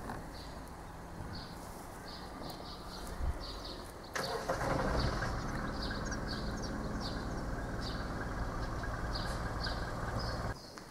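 A vehicle engine running steadily, with birds chirping over it. About four seconds in the sound jumps abruptly to a louder, denser running noise, which cuts off suddenly shortly before the end.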